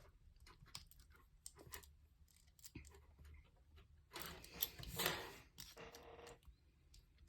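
Faint, scattered clicks of a lock pick and tension wrench working the pins inside a pin-tumbler lock. A louder noisy rustle comes about four seconds in, then a short low hum.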